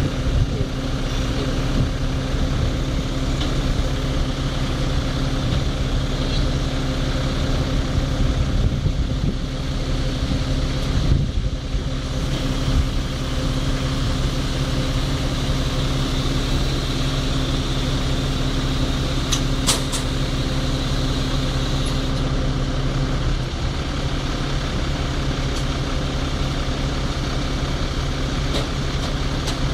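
Fire truck's diesel engine idling steadily, a constant even hum with no change in speed. A couple of sharp clicks about two-thirds of the way in.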